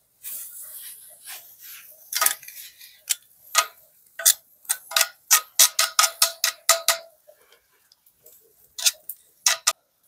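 A quick, irregular run of sharp clicks, about fifteen in five seconds, then two more near the end.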